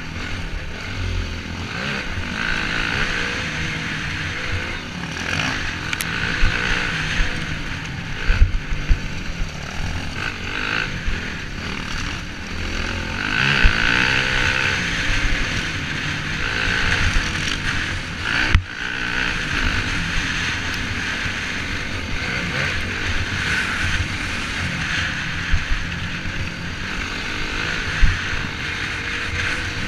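Dirt bike engine running under changing throttle on a rough trail, heard from a camera on the bike, with heavy wind noise on the microphone and scattered knocks from bumps.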